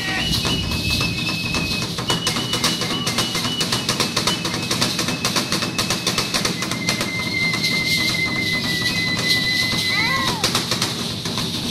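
Drum-led music with rapid, dense drumbeats. Several long, high held tones sound over the drumming, the last one lower and ending in a short wavering glide near the end.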